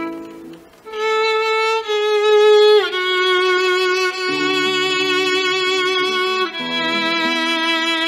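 Violin playing a slow melody of long held notes, sliding down to a lower note about three seconds in, with a nylon-string classical guitar accompanying underneath.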